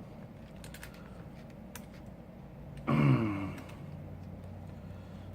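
A man's short wordless vocal sound about three seconds in, falling in pitch, like a throat clear or a grunt. A few faint small clicks from handling phone parts come before it.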